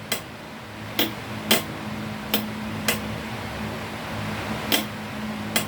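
A small 2PDT relay clicking sharply about seven times at uneven intervals, mostly in pairs about half a second apart, as its operating coil is energised and released. A steady low hum runs underneath.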